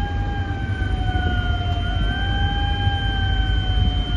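Locomotive running slowly, heard from inside its cab: a low rumble under a steady whine that sags and rises slightly in pitch, with a faint high steady tone above it.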